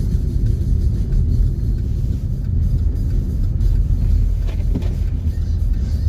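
Steady low rumble of a vehicle driving on a snow-covered road, heard from inside the cab: engine and tyre noise.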